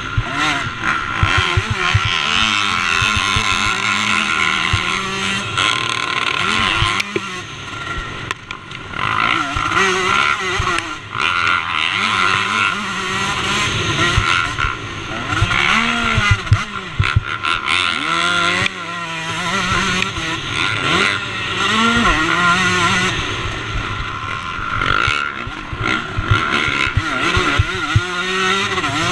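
KTM 125 two-stroke motocross engine heard on board while being raced, revving up and dropping back again and again as the bike is ridden through corners and down straights, the pitch climbing with each gear and falling off on the brakes.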